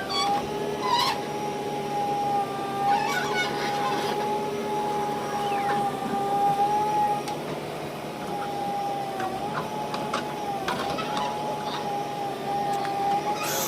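A small motor whining at a steady pitch that wavers slightly now and then, with scattered clicks and knocks.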